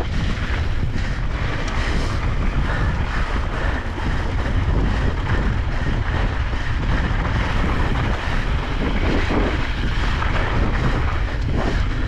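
Wind buffeting the microphone while riding an electric mountain bike, a loud, steady rumble with a noisy hiss over it.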